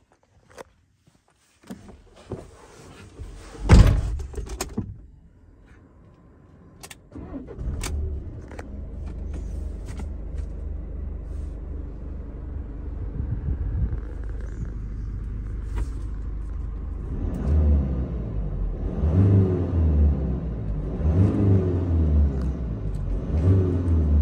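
A van door shuts with a thud, then the 2020 Peugeot Boxer's diesel engine starts and idles steadily. From about two-thirds of the way through it is revved in four short blips, each rising and falling.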